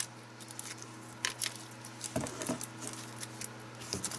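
Flat lithium-ion pouch battery packs clicking and clattering as they are picked out of a cardboard box of foam packing peanuts and stacked in the hand, with scattered sharp clicks and rustling.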